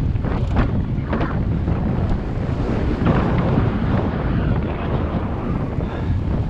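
Wind buffeting the microphone of a GoPro Hero 7 Black, a steady loud rumble, from the airflow of riding.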